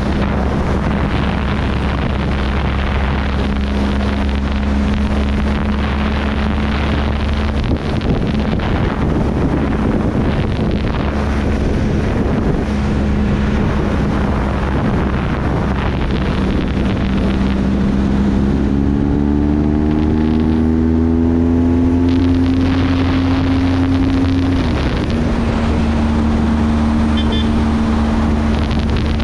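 Motorcycle engine running at road speed under heavy wind noise on the microphone. About two-thirds of the way in, the engine note climbs steadily as the bike accelerates, then drops abruptly with a shift up a gear and holds steady.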